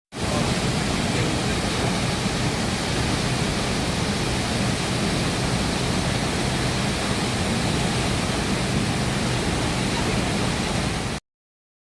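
Steady, even rush of falling water from a waterfall, starting and cutting off abruptly.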